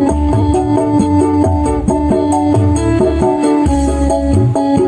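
Music with strong bass and a steady beat playing loudly through a home-built stereo power amplifier and its speakers, as a sound test of the amplifier.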